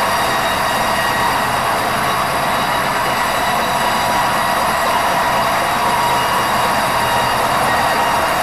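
A steady mechanical running noise with several steady whining tones in it, unchanging throughout.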